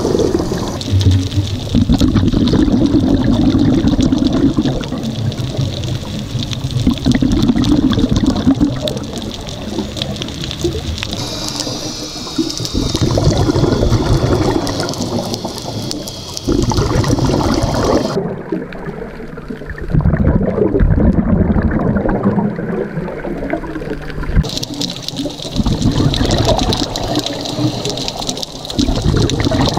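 Scuba diver breathing through a regulator underwater: exhaled bubbles bubbling and rushing in bursts of a few seconds, with quieter spells between breaths.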